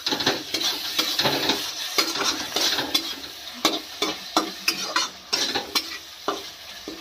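Flat metal spatula scraping and stirring masala and freshly added tomato pieces around a steel kadai, two or three scrapes a second, over the steady sizzle of the spices frying in oil.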